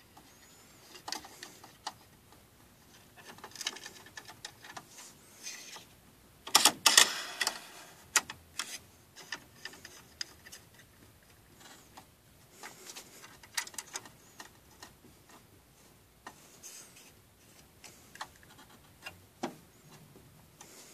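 Scattered plastic and metal clicks and knocks as the frame holder arm of a Brother PR600-series embroidery machine is moved and refitted on its rail by hand, with a louder burst of clatter about six and a half seconds in.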